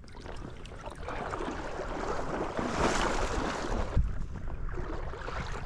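Water splashing and sloshing as a shot drake pintail is lifted out of the water, with wind rumbling on the microphone and a low bump about four seconds in.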